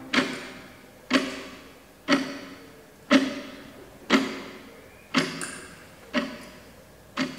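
Clock ticking steadily, one sharp tick a second, each tick ringing out and fading before the next.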